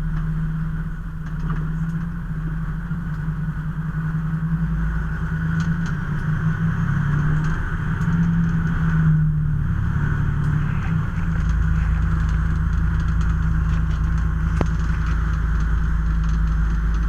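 A motor vehicle driving: a steady engine drone with road noise. About eleven seconds in, the low rumble deepens and grows a little stronger.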